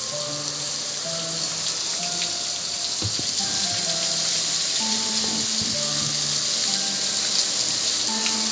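Hose spray hitting the lid and panels of a gas grill: a steady hiss of water. Music with a simple melody plays underneath.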